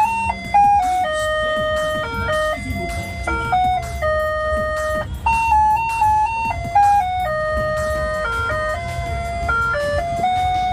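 Ice cream van chimes playing a simple electronic tune, one held note after another stepping up and down, over a steady low rumble.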